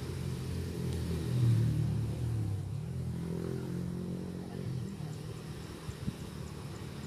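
A motor vehicle's engine passing by, growing to its loudest about a second and a half in and then fading away over the next few seconds.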